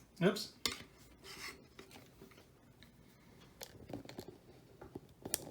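Small plastic toy parts clicking and rubbing as a Transformers action figure is handled and fitted with a sword. The clicks are sharp and scattered, with soft scraping between them.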